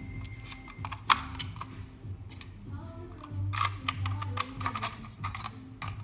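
Background music over clicks and plastic rattles from a 9-volt battery being snapped onto a smoke detector's battery clip and the plastic detector being handled. The sharpest click comes about a second in, and a run of clicks follows a little past the middle.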